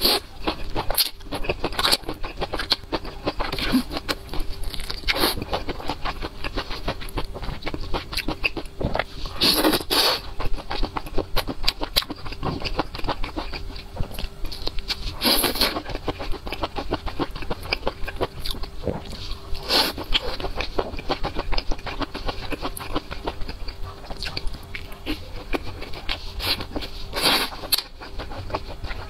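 Close-miked eating: biting and wet chewing of sauce-glazed skewered food such as fried chicken and green chili peppers, with dense crackly mouth sounds and a few louder bites.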